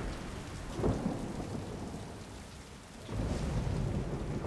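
Thunderstorm: steady rain with thunder, a sharp thunderclap about a second in and a low rumble building again after about three seconds.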